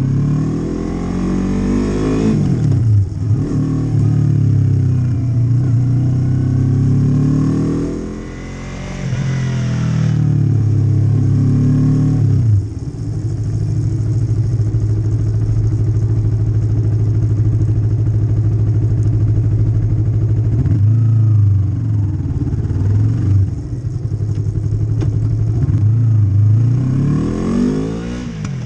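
Yamaha MT-03 parallel-twin engine through an Arrow Pro Race slip-on exhaust, revved up and down several times. It holds steady revs for several seconds in the middle, then drops and climbs again near the end.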